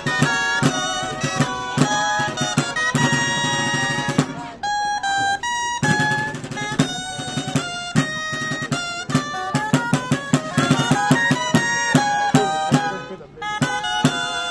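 Music for a giants' dance: a bright pitched melody over a steady drum beat, with a short break about four and a half seconds in.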